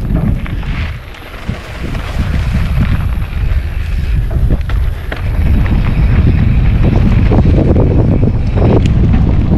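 Wind buffeting the camera's microphone as a mountain bike rides down a dirt trail, with tyres on dirt and the bike rattling over bumps and rocks. The wind rumble grows louder about halfway through as the bike speeds up.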